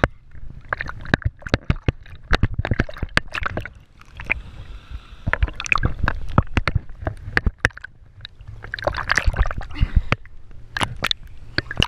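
Lake water sloshing and splashing against a camera at the waterline, with many sharp knocks and slaps of small waves on the housing. About four seconds in the sound goes briefly quieter and muffled, as the camera dips under the surface.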